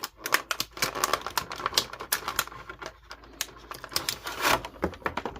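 Irregular sharp clicks and taps of hard plastic: a plastic action figure being worked free of its plastic packaging tray, with a brief rustle about four and a half seconds in.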